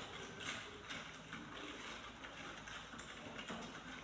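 Typing on a desktop computer keyboard: a quick, irregular run of key clicks.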